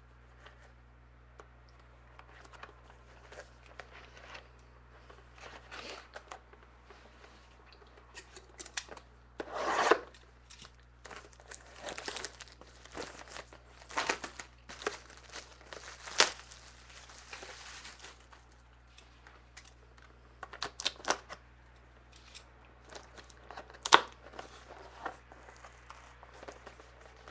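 A plastic wrapper being cut and torn off a box of trading cards, with crinkling, cardboard rubbing and scattered clicks. The loudest tearing comes about ten seconds in, and there is a sharp tap near the end.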